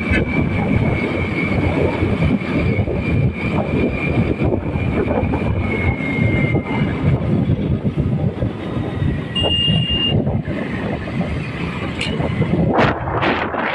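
Steady rumbling travel noise from a vehicle moving alongside a passenger train on a parallel track, the train's running and the road noise mixed together. A faint steady high whine runs through the first half, and the noise swells louder near the end.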